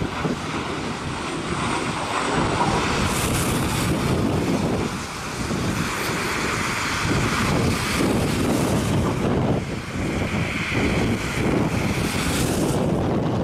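Strong gusty wind buffeting the microphone over the jet-engine roar of a Boeing 737 landing in a strong crosswind. The roar swells and eases with the gusts.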